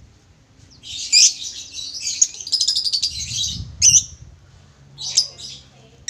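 Male lovebird chattering: about three seconds of shrill, rapid chirps, then a sharp call a little before four seconds in and a few more chirps about five seconds in.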